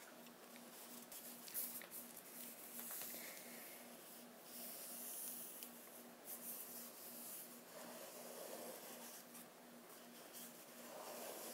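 Paper pages of a hardcover book being turned and smoothed flat by hand: soft rustling and brushing with small crackles of paper.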